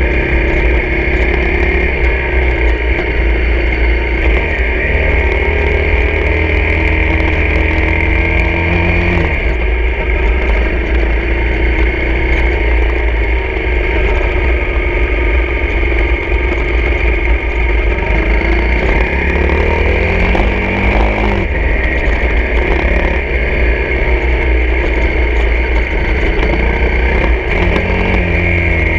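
Honda CRF250 dirt bike's single-cylinder engine running while ridden at low speed, its pitch rising and falling a few times with the throttle, over a steady low rumble.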